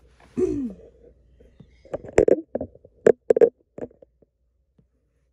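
Sharp clicks and taps of items being handled in a foam-lined hard case, several in a cluster about two to four seconds in.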